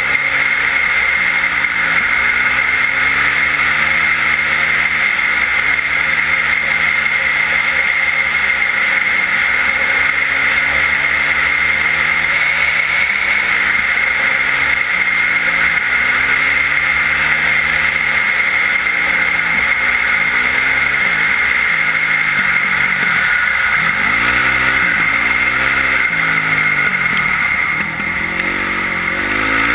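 Yamaha WR450F single-cylinder four-stroke enduro engine with an Akrapovič exhaust, under way and revving up and down, its pitch rising and falling every second or two as the throttle opens and closes, with a steady hiss over it. Near the end it eases off briefly, then revs climb again.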